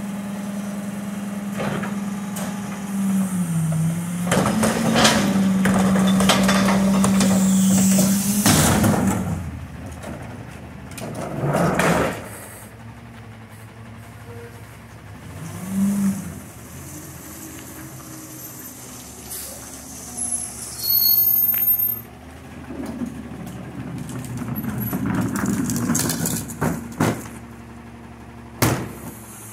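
McNeilus rear-loader garbage truck working a pickup: the engine holds a steady raised speed for about the first eight seconds, then drops back toward idle. Several loud bangs follow from the cart tipper, the carts and the packer mechanism.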